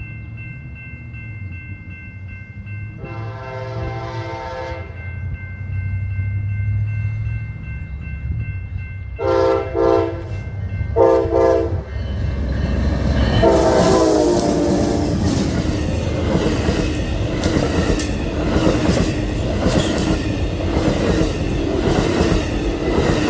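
A train's locomotive horn playing a 'horn show' of taps and blasts: one blast about three seconds in, a quick run of short taps around the tenth second, then a longer blast as the train arrives. The locomotive's rumble builds underneath, and after the last blast the passing train's rolling noise and rhythmic wheel clatter take over.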